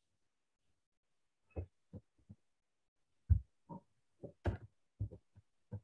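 Scattered clicks and taps from a computer keyboard and mouse, about a dozen irregular strokes starting about a second and a half in.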